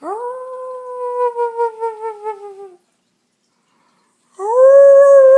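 A person howling like a dog: a long 'ooo' that slides up at the start, is held about two and a half seconds and wavers down a little, then after a short pause a second, louder howl.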